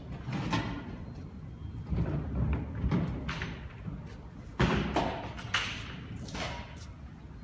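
Knocks and rattles of a hand truck and a stack of chairs inside a sheet-metal moving cart as the load is set down and the hand truck is backed out over the metal ramp. About six thumps, the loudest about four and a half seconds in.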